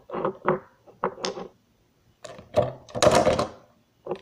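Small glass nail polish bottles knocking and clinking together as they are handled and put away, in several irregular clattering bursts.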